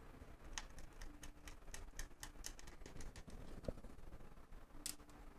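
Faint, scattered light clicks and taps of hands and a screwdriver working on parts inside an opened laptop's underside. They cluster in the first three seconds, with a few more near the end.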